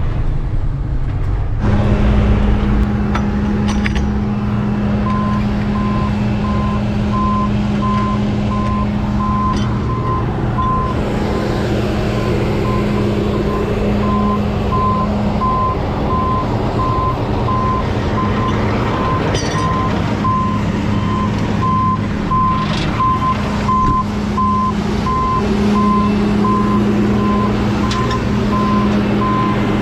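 Truck engine running with a steady drone, and from a few seconds in a reversing alarm beeping at an even pace: the truck is backing up.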